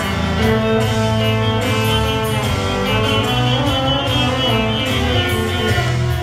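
Bouzouki played live, plucked strings carrying a melody over continuous music.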